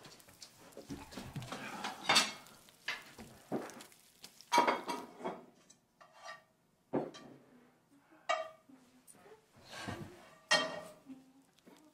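Kitchen clatter: a utensil knocking and scraping in a frying pan and crockery clinking, with about five louder clanks a second or two apart, some ringing briefly.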